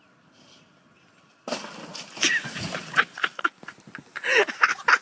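After a faint hum, a dog's excited sounds start about a second and a half in: quick panting and snuffling with short rising whines, mixed with rapid crunching and scuffing.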